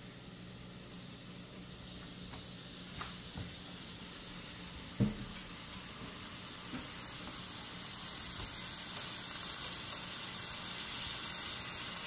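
Onion and sausage sizzling in oil and butter in a frying pan, the sizzle growing steadily louder, with a single knock about five seconds in.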